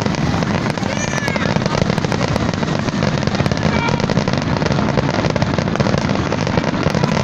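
Fireworks grand finale: a dense, unbroken barrage of rapid bangs and crackles.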